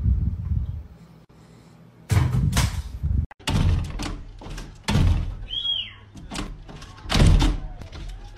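A dog's paws banging against a glass sliding door, the door thudding and rattling in its frame as it is shoved back and forth, about a dozen loud, uneven knocks from about two seconds in. There is one brief high squeak in the middle.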